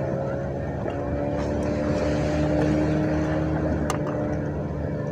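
An engine running steadily at an even speed, with a slight change in pitch about a second in.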